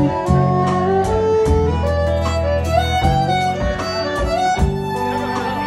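Live country band playing, with a fiddle carrying a gliding lead melody over electric bass and guitar.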